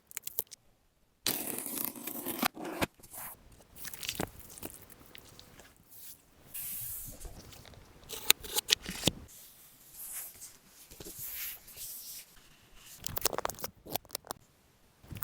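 Tablet box and packaging being opened by hand: tearing and rustling of the packaging, cardboard scraping and sliding, with scattered sharp taps and clicks.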